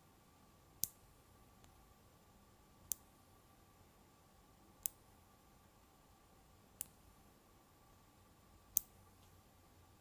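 5 mm magnet balls clicking together as they are handled: five sharp single clicks about two seconds apart, the last one the loudest.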